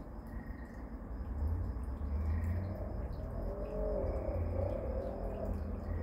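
Summer night ambience: a steady high insect chorus over a low rumble, joined about three seconds in by a wavering, rising-and-falling call that fades out near the end.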